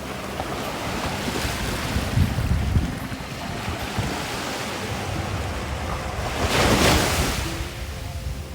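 Small waves breaking and washing onto a sandy beach, one wave surging in loudest about seven seconds in, with wind buffeting the microphone.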